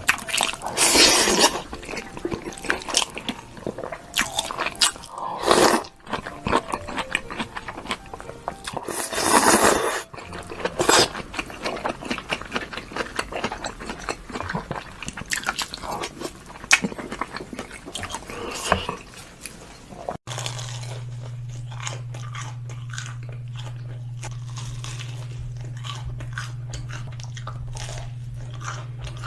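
Close-miked biting and chewing of crunchy food, with many sharp crunches. About twenty seconds in, the sound cuts to finer, quieter crunching over a steady low hum.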